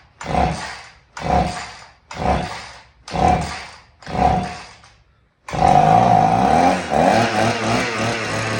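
Husqvarna 50 chainsaw being pull-started, five pulls of the recoil starter about a second apart, on a saw with low compression. About five and a half seconds in, a loud continuous sound with a steady hum starts and carries on.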